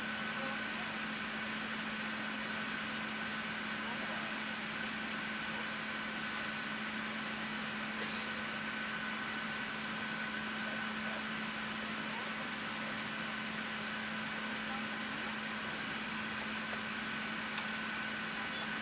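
Airbus A380 cabin noise on the ground with the engines at idle: a steady low hum and a steady higher whine over an even rushing hiss.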